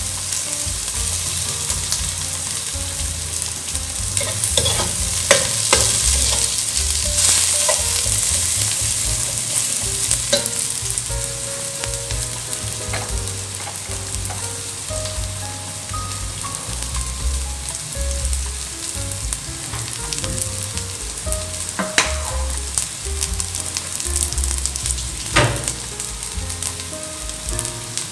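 Minced garlic and sliced onions sizzling steadily in hot oil in a nonstick pan as they fry toward golden brown, with a metal spatula scraping and knocking against the pan a few times.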